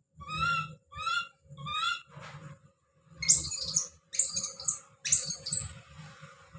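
Baby monkey calling out: three short high coos in the first two seconds, then three loud screams, each close to a second long, starting about three seconds in.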